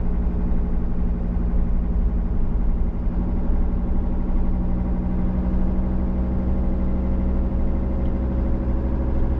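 Campervan engine running steadily as the van drives slowly, a constant low hum.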